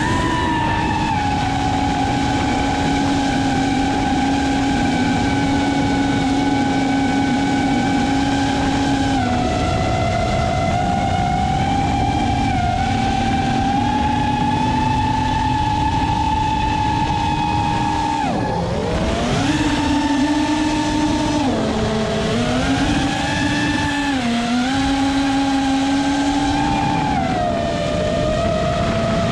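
FPV racing quadcopter's brushless motors and propellers whining steadily in flight, heard from the onboard camera. The pitch climbs as the throttle comes up, then steps and glides down and back up with throttle changes. About two-thirds through there is a sharp drop and recovery as the throttle is chopped and punched again. Wind rushes under the whine.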